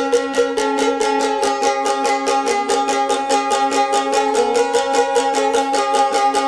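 Chechen dechig-pondar, a three-stringed plucked folk lute, strummed fast and evenly, with a steady ringing note held under a moving melody.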